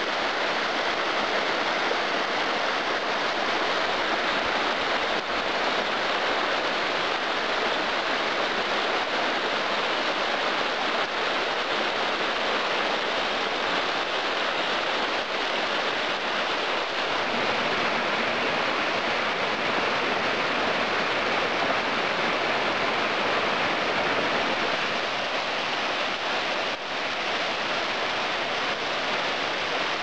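Large mountain waterfall pouring over layered rock ledges: a steady, even rush of falling water.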